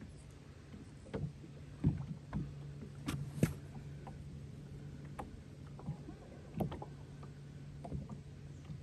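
Small waves slapping against a boat hull in irregular knocks and splashes, over a steady low hum.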